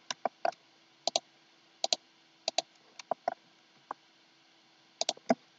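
Computer mouse button clicks: a series of sharp clicks at irregular intervals, many in quick pairs, over a faint steady hum.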